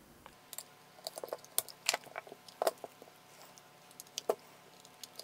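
Scattered small clicks and rattles of plastic connectors and wires being handled: a LiPo battery's leads being plugged into an ISDT Q8 Plus hobby charger, with clicks from the charger's button.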